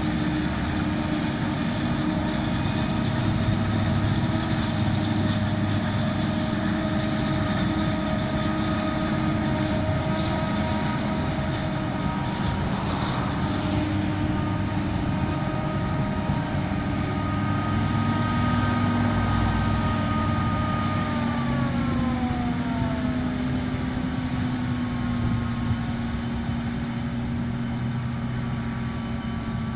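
Self-propelled forage harvester chopping maize for silage, with a tractor running alongside: a loud, steady machine drone with a high whine. Partway through, the whine slides down in pitch and then settles again.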